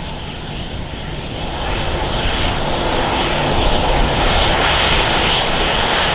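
Jet engines of a Ryanair Boeing 737 taxiing close by: a steady rush with a high whine, growing louder over the first few seconds and then holding.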